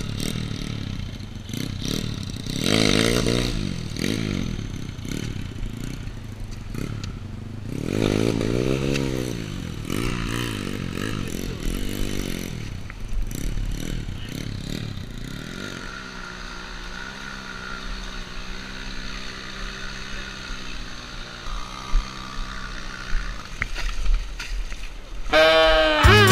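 Dirt bike engine revving up and down a few times, then settling to a steady idle. Music starts just before the end.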